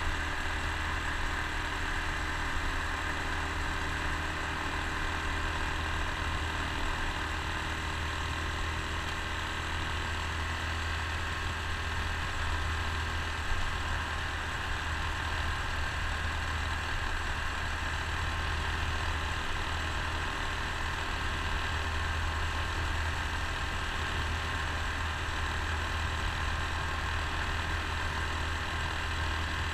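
Honda Super Cub C125's small air-cooled single-cylinder four-stroke engine running steadily at cruising speed, with wind and road noise from riding.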